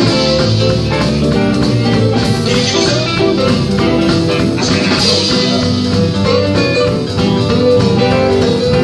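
A live blues band playing, with electric guitar to the fore.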